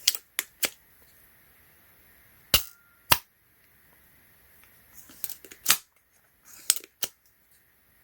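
Spring-loaded desoldering pump (solder sucker) being cocked and fired repeatedly: a series of sharp snaps of the plunger, several coming in pairs about half a second apart.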